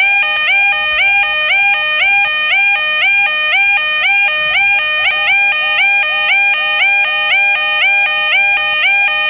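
Railway level crossing warning alarm: an electronic two-tone bell alternating rapidly and evenly, with each tone bending slightly upward as it starts.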